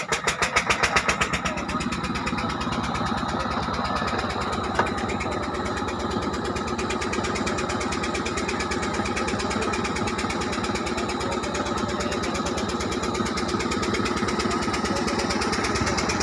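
Motor ferry boat's engine running steadily with a rapid, even chugging beat. In the first second or so the beats come louder before it settles into an even run.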